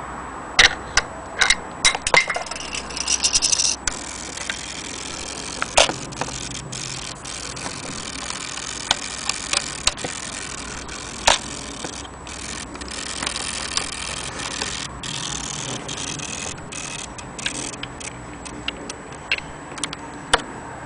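Mechanism of a vintage folding film camera being worked by hand: sharp separate clicks with handling noise, and a quick run of rapid clicking about three seconds in.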